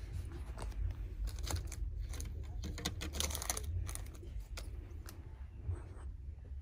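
Light clicking and rattling of small items being handled at a store rack, in a cluster of clicks about one to four seconds in, over a low steady hum.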